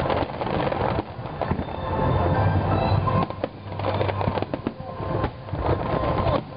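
Fireworks display going off: a rapid run of overlapping bangs and crackles with deep booms underneath.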